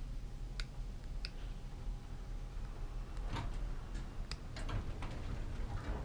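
Inside a 1909 Otis elevator car: a steady low hum, broken by scattered sharp metallic clicks and ticks, several of them bunched between about three and five seconds in.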